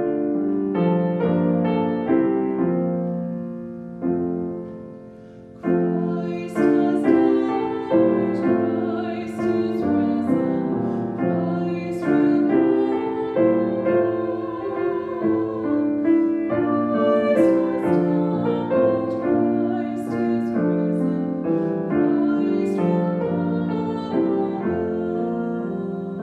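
Slow church music: piano chords with singing, each chord held a second or two.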